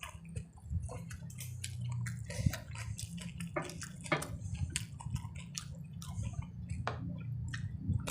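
Close-up wet eating sounds: irregular sharp, squelching clicks of chewing curry and rice, over a steady low hum.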